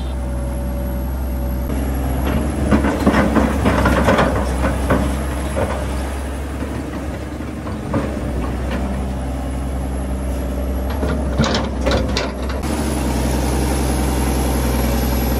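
Kobelko SK200 excavator's diesel engine running under load as it digs wet earth, growing louder and rougher for a couple of seconds early on, with clanks and scraping near the end. After a sudden change a little past two-thirds of the way through, a steadier engine hum with a thin high whine.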